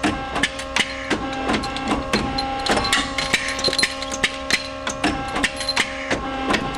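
Small-parts tube end-forming press running: a steady machine hum under a rapid, irregular clatter of sharp metal clicks and knocks from short steel tube blanks.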